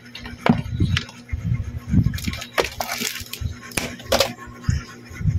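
Clear plastic storage cabinet parts being handled, giving an irregular string of sharp plastic clicks and knocks.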